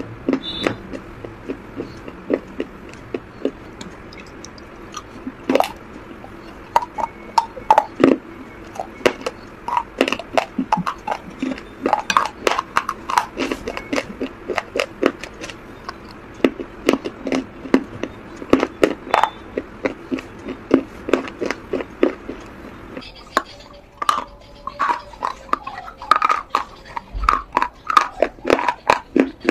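Close-up crunching as a person bites and chews pieces of baked clay: dense runs of sharp, crisp cracks with short pauses between bites.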